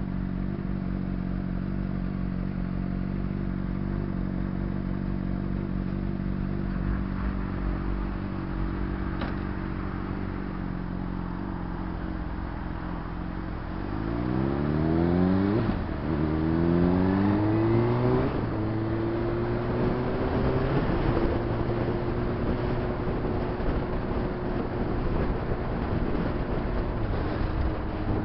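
Honda CBR600RR's inline-four engine idling steadily while stopped. About halfway through it pulls away with the revs rising, shifts up twice in quick succession, and then runs at a steady cruise.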